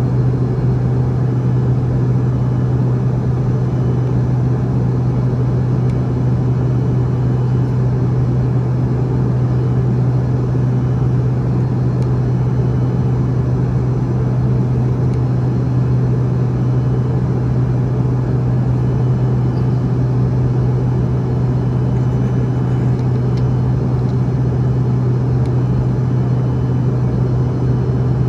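Steady drone of an airliner heard inside the passenger cabin: a constant low hum over a rumble, with no change in pitch or level.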